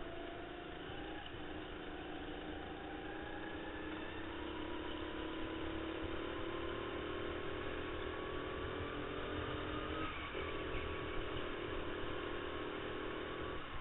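Onboard go-kart motor running at speed, its pitch rising steadily for about ten seconds as the kart accelerates, then dropping sharply as it slows, before climbing again near the end.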